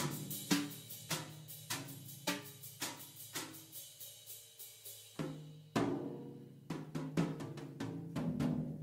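Background music with a steady drum beat, about two strikes a second, over a low sustained bass line.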